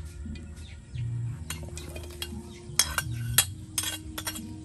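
Metal spatula scraping and clinking against a ceramic plate and a steel wok as fried beetles are pushed from the plate into the wok, with a run of sharp clinks starting about three seconds in.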